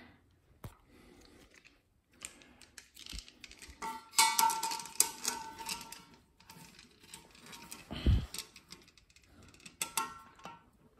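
Small metal toilet-mounting hardware clicking and clinking as it is handled and fitted. A brief metallic ringing comes about four seconds in, and a dull thump comes about eight seconds in.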